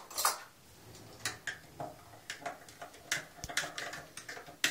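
A metal spoon stirring juice in a glass jar, clinking against the glass in quick, irregular clicks, several a second.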